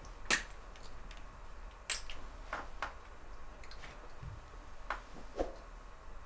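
Scattered small clicks and taps of cosmetics being handled and set down on a vanity table, a lipstick among them. There are about seven separate clicks at uneven spacing, the loudest near the start and about two seconds in, with a soft thud a little past four seconds.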